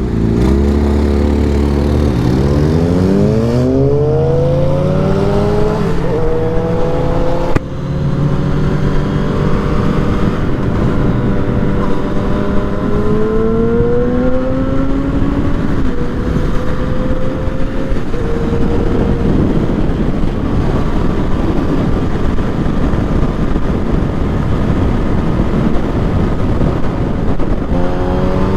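Yamaha FZ-09's three-cylinder engine accelerating hard, its note climbing and dropping back at each upshift through the first half, then holding fairly steady before climbing again near the end, with heavy wind rush on the riding microphone.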